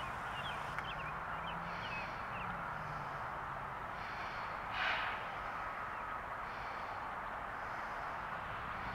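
Faint outdoor ambience: a steady hiss, with birds chirping a few times in the first three seconds over a faint low drone, and a short rush of noise about five seconds in.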